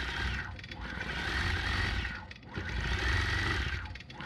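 Gammill longarm quilting machine with Statler computer guidance, stitching through a quilt: a rapid needle rattle over a steady motor whine. The sound dips briefly twice as the head slows through the turns of the leaf pattern.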